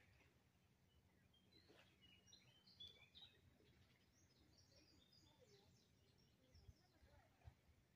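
Near silence over a calm lake, with faint bird chirps for a few seconds in the middle and two soft low thumps near the end.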